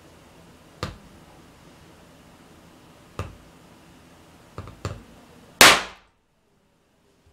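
A hammer knocking on a steel punch four times, the last two in quick succession, then the sharp bang of a СХ-2000 primer going off under the next blow, by far the loudest sound.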